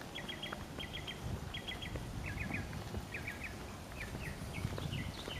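A songbird calling over and over in quick groups of three or four short, high chirps.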